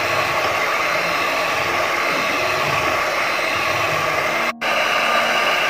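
Electric hand mixer running steadily, its twin beaters whipping cream in a plastic bowl. The sound cuts out for an instant about four and a half seconds in, then carries on.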